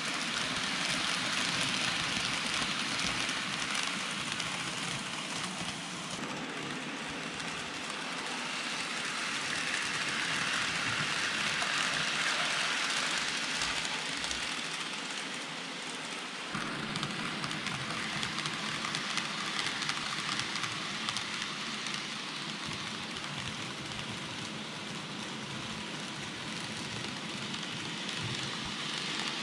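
N gauge model trains running on layout track: a steady, gritty rattle and hiss of small metal wheels rolling on the rails. The sound changes abruptly about six and sixteen seconds in.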